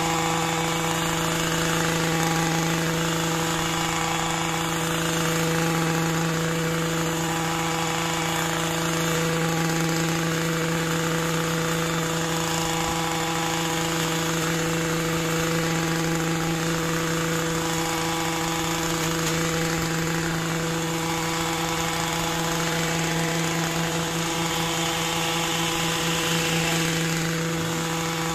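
Small petrol engine of a long-shaft hedge-cutting tool running steadily at high revs as it is worked along a hedge.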